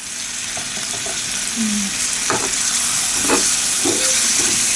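Curry base frying and sizzling in hot oil in a pan. The sizzle jumps up at the start and stays steady while it is stirred, with a few knocks of the spatula against the pan.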